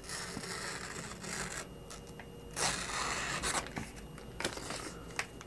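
Knife blade slicing through a sheet of paper: a scratchy hiss in several passes, the loudest about two and a half seconds in. The edge no longer cuts as it should.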